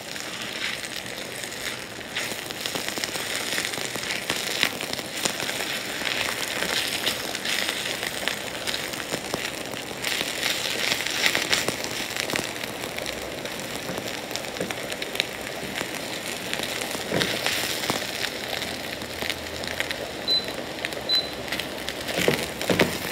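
Coated chicken cubes frying in hot coconut oil in a non-stick pan, sizzling and crackling steadily over high heat as a spatula turns them.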